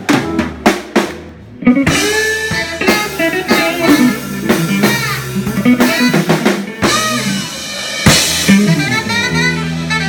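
A live blues band plays an instrumental passage with drum kit, electric guitar, bass and saxophone. It opens on a few loud drum hits and drops briefly. About a second and a half in, the full band comes back in with a bending lead line over the drums, and a loud accent hits near the end.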